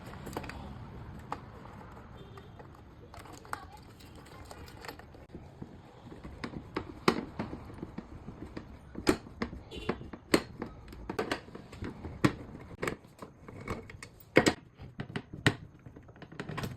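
Irregular clicks and knocks of hand tools and metal parts being handled during a washing machine gearbox change, sparse at first and coming thick and fast from about six seconds in.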